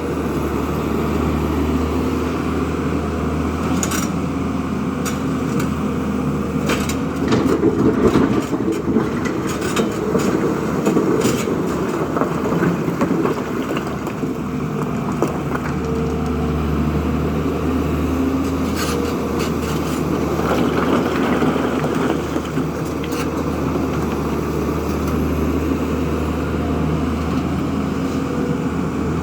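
Diesel engine of a JCB 3DX backhoe loader running steadily under work, with scattered knocks, clanks and scraping from the digging, loudest about a third of the way in.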